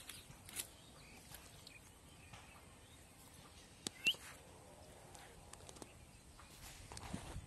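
Quiet rural outdoor background with a few faint clicks, and one short rising bird chirp about four seconds in.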